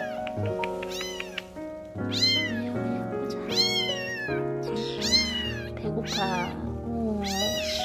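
Young kittens mewing loudly and over and over, high calls that rise and then fall, about one a second, over background music.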